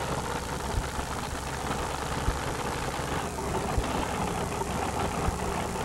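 Two-wheel-drive super modified Chevrolet pulling truck's engine idling at the starting line before its pull, with a low thump about every second and a half.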